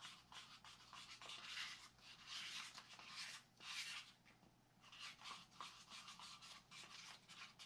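Faint, irregular scratchy rubbing strokes from hand work with epoxy resin during a fiberglass layup, about one or two a second, with a short pause midway.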